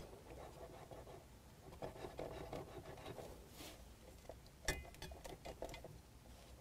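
Faint rubbing and handling noises as a hydraulic hose is worked out of the fitting on an aluminium tonneau cylinder, with one sharp click near the end and a few softer clicks after it.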